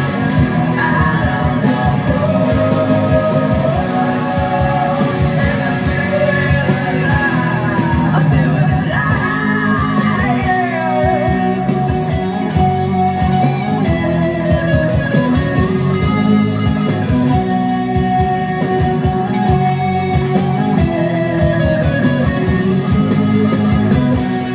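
Electric guitar, a Les Paul-style guitar through a Mooer Brown Sound preamp pedal, playing a distorted rock riff over a rock backing track with vocals.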